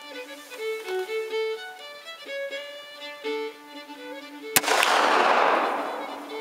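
Fiddle music playing throughout, cut across about four and a half seconds in by a single shot from a Martini-Henry .577/450 black-powder rifle. The noise of the shot dies away over about a second and a half.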